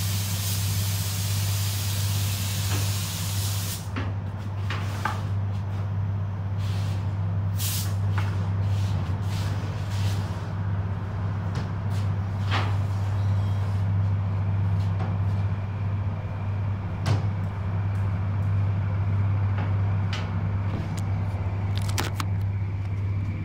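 Air spray gun hissing as it lays 2K clearcoat, cutting off sharply about four seconds in. The spray booth's steady low hum runs under it throughout, and scattered light clicks and knocks follow once the spraying stops.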